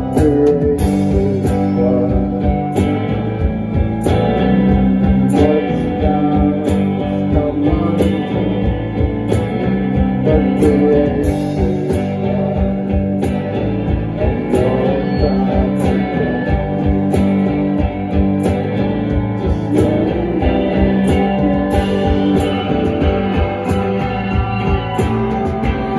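Live rock band playing: electric guitars and bass over a steady beat, loud and continuous.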